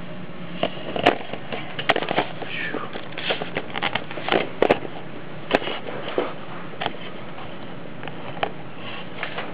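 Irregular light clicks and knocks with brief rustles, handling noise as the camera is moved around the typewriter, over a steady hiss.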